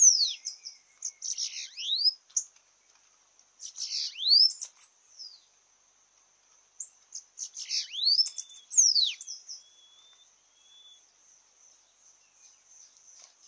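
Bananaquits singing: bursts of high, thin, buzzy notes with sharp sweeping whistles, four phrases in the first nine seconds, then only faint high buzzing.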